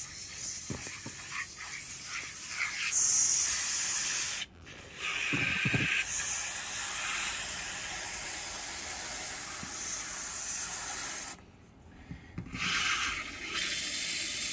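Garden hose spray nozzle spraying water into a stainless steel bowl, whipping dish soap into suds, a steady hiss of water. The spray cuts out briefly about four and a half seconds in, and again for about a second near the end.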